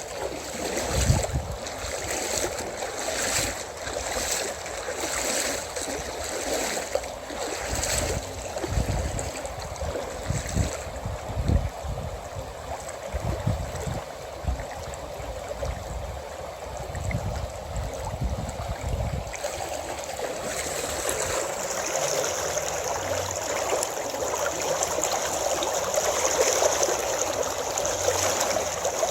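Steady rushing of flowing stream water. Wind gusts buffet the microphone with a low rumble for roughly the first two-thirds, then drop away, leaving the water on its own.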